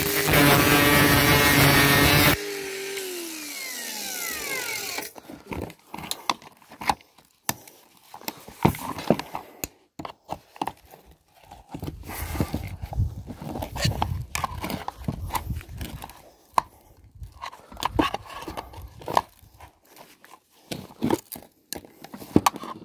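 Cordless angle grinder cutting into a vacuum cleaner motor's metal housing, switched off about two seconds in and winding down with a falling whine. Then scattered metallic knocks, clicks and scrapes as a steel rod pries at the cut motor housing.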